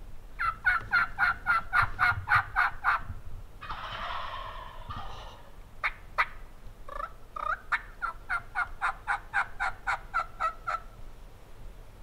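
Turkey yelps in a fast run of about four notes a second, then a rattling gobble about four seconds in. Two sharp notes and a second, longer run of yelps follow.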